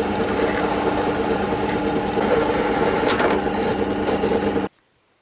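Bench drill press motor running steadily while drilling a vent hole into a small Tabasco bottle, with a few light clicks about three seconds in; it cuts off suddenly near the end.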